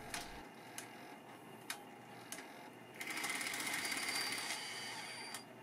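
Sony EV-S9000E Hi8 video deck's tape transport in fast forward, making a regular ticking of roughly one click a second. From about halfway in, the tape winding whirs louder until it stops near the end. The owner blames the ticking on a split supply or take-up spool gear.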